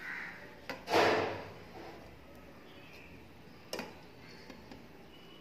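Handling sounds at a meal: a few sharp light clicks, and about a second in one short, louder scrape or crackle that dies away within half a second.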